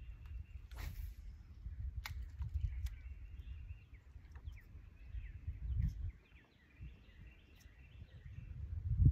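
Uneven low rumble of wind on the microphone, with small birds chirping repeatedly in the background. Two sharp clicks about one and two seconds in.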